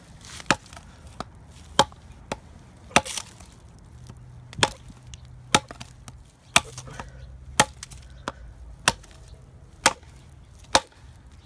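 Glock 78 field knife's spring-steel blade chopping into a dry stick, about a dozen sharp hacks roughly one a second.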